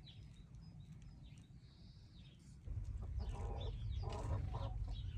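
Hens clucking several times over a low, steady rumble that sets in suddenly about halfway through. Small birds chirp faintly in the first half.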